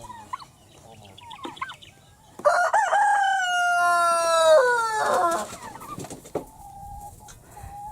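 A rooster crowing once: a long, loud crow of about two and a half seconds that holds its pitch and then falls away at the end. Soft clucking of chickens comes before it.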